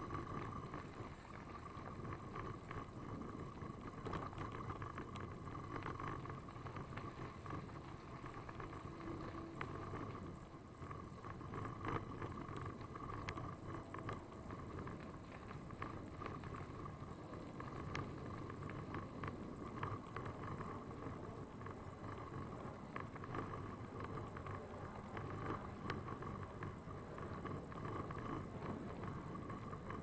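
Bicycle rolling along a dirt and gravel trail: continuous tyre noise with many small rattles and clicks from the bike over the rough ground, and some wind on the microphone.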